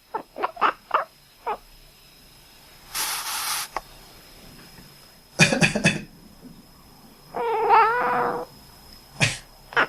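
A domestic cat answering a person's coughs with short, quack-like calls: a quick run of about five calls at the start, then, after a burst of coughing about halfway through, one longer wavering call. Another cough comes near the end.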